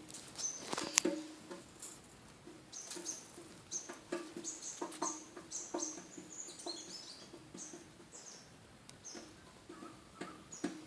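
Pet lovebirds chirping: a busy run of short, high-pitched chirps, some sweeping quickly downward, with a few sharp clicks, the loudest about a second in.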